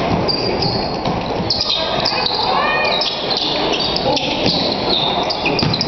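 Live basketball play: many short sneaker squeaks on the hardwood court and a ball bouncing, over steady crowd chatter.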